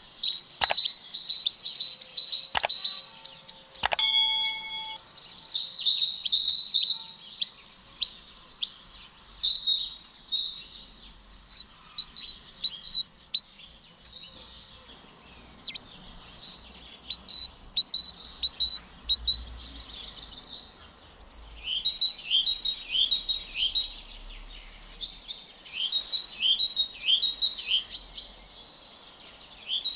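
Songbirds singing: phrases of fast, high chirping trills a couple of seconds long, one after another with short pauses between. A few sharp clicks in the first four seconds.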